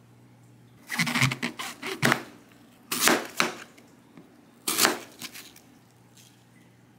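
Kitchen knife slicing through a crisp apple onto a plastic cutting board: three bursts of sharp cuts and knocks, about a second in, around three seconds, and near five seconds.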